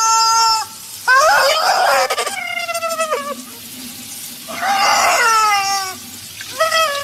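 Rubber chicken squawking and gurgling as tap water runs into its open beak. A long held squawk stops just under a second in, and three more squawks follow, about a second, four and a half seconds and six and a half seconds in, several of them sliding down in pitch.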